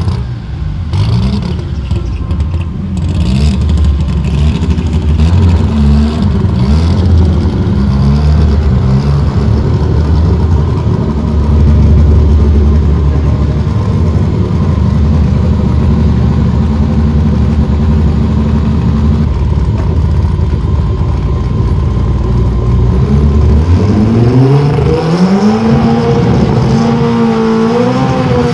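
Drag race car's engine blipped in short revs, then running at a loud low rumble as the car rolls toward the start line. About 23 seconds in, it revs up and is held at high revs with a wavering pitch as the car stages.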